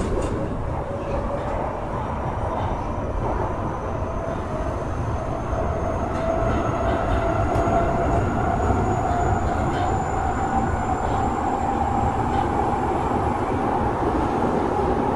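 Interior running sound of an Osaka Metro 23 series subway car refitted with a Hitachi IGBT VVVF inverter. The inverter and traction motors give a whine that slowly rises in pitch as the train gains speed, over steady rumbling wheel and rail noise.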